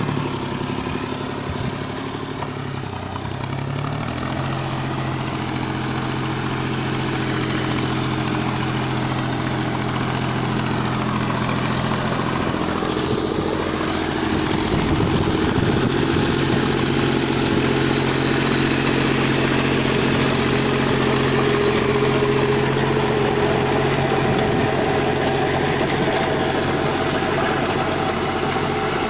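Sonalika mini tractor's diesel engine running steadily under load, driving a rear PTO rotavator that churns the soil as the tractor tills between crop rows. The engine note steps up about four seconds in and stays there.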